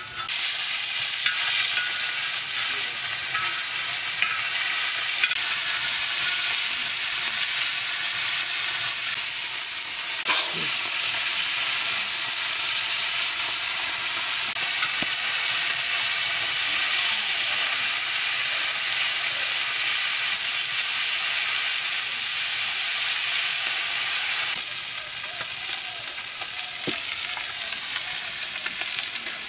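Fish pieces sizzling steadily as they fry in hot oil in a shallow black iron pan, with a few clinks of the metal spatula against the pan as they are turned. The sizzle drops somewhat near the end.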